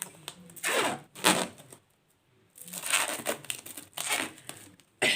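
Plastic cling film crinkling and rustling in two spells as it is pulled and stretched around a birdcage.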